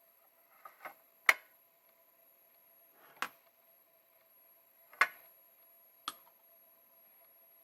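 Small hard clicks and taps from handling small plastic and metal parts of a miniature model: about six sharp knocks, loudest about a second in and again about five seconds in.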